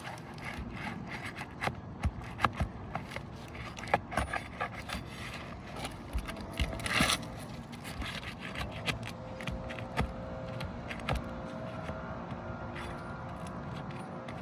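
Pry bar scraping and prying under laminate asphalt shingles, tearing the sealant strip loose, with irregular clicks and knocks; a louder scrape about seven seconds in.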